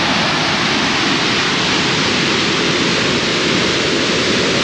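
Waterfall rushing steadily, a dense even roar of water falling in high flow after heavy rain.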